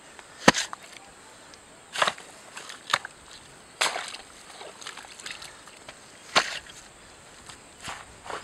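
Chopping: sharp single strikes of a tool, about seven of them at uneven gaps of one to two seconds, the loudest about half a second in, over a faint outdoor background.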